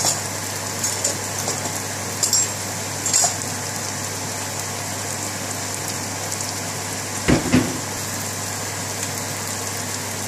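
Diced onions frying in oil in a pan: a steady sizzle with a few faint crackles, over a low steady hum, and a single thump about seven seconds in.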